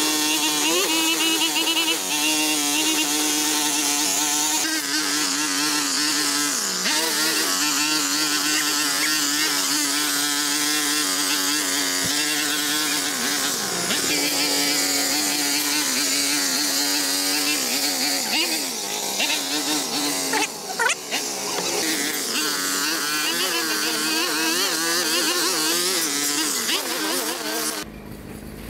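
Small petrol-engine garden power tool running at high speed, a steady buzzing drone that briefly drops in pitch a couple of times as the throttle eases, then cuts off sharply near the end.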